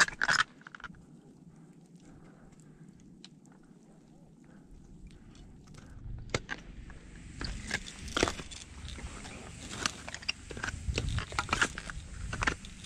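Scattered clicks, scrapes and crunches of a climber's gear and steps, sparse at first and much busier from about six seconds in.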